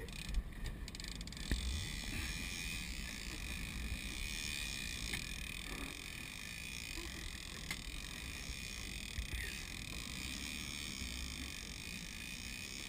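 Steady, muffled rumble and hiss of a fishing boat under way at sea, heard through a waterproof camera housing, with a few faint clicks.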